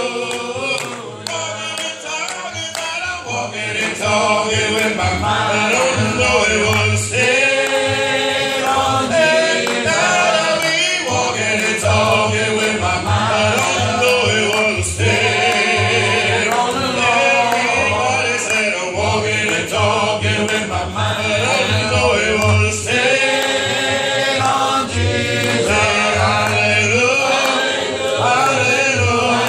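Church congregation singing a slow gospel spiritual a cappella, many voices together, led by a male song leader at a microphone.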